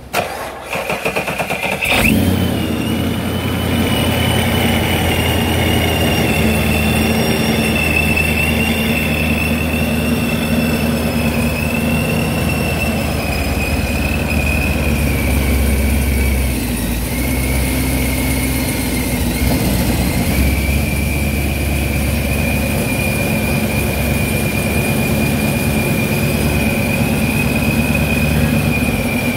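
Supercharged sixth-generation Camaro V8 cranking and firing about two seconds in, then idling steadily with a high steady whine over the idle.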